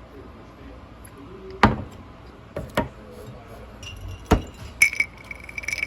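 Kitchen utensil and dish clatter: three sharp knocks spaced about a second apart, then a run of light clinks with a ringing tone near the end.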